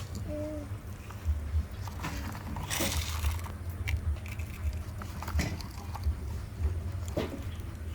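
Sand crunching and scraping under toy construction vehicles, with scattered clicks and knocks and a short hissing rush about three seconds in, over a steady low rumble.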